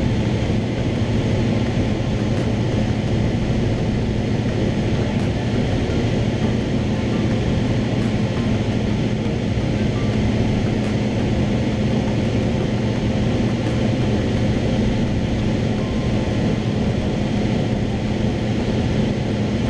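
Cessna 172's piston engine and propeller running steadily in cruise flight, a constant drone heard from inside the cabin.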